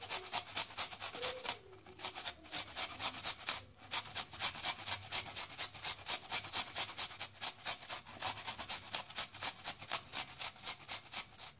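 Raw turnip grated on the fine side of a hand grater: quick, even rasping strokes, about four or five a second, pausing briefly twice in the first four seconds.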